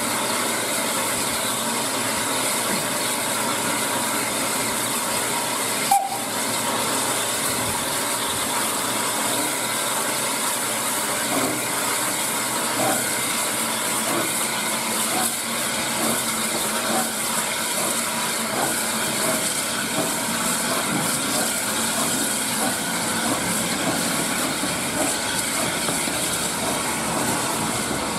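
Steam tank locomotive pulling its train slowly away, with a steady hiss of steam. A single sharp knock comes about six seconds in, and from about eleven seconds in there are irregular clicks of the coach wheels running over the rail joints and points.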